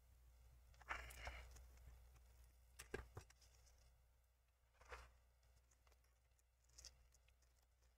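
Faint, sparse scraping and small clicks from a thin tool prying at the edge of a laptop touch screen to get under its double-sided adhesive tape: a short scrape about a second in, then a few soft clicks spread over the following seconds.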